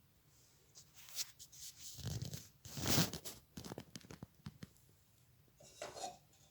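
Rustling and a tearing sound, with scattered sharp clicks, loudest about three seconds in, and a short burst of rustling near the end.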